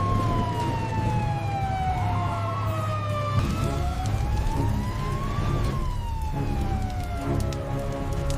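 A siren wailing slowly, its pitch falling, rising about halfway through and falling again, over a steady low hum.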